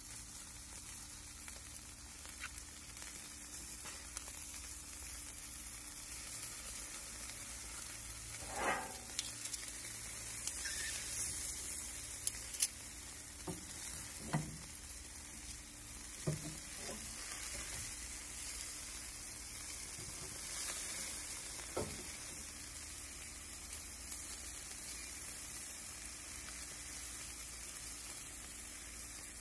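Chicken thighs and a pompano sizzling on a charcoal grill: a steady hissing, with a few soft pops scattered through it.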